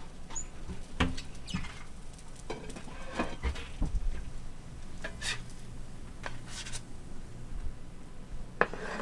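A metal spatula clicking and scraping in a cast-iron frying pan as a pancake is worked around and lifted out, over a faint sizzle of frying fat.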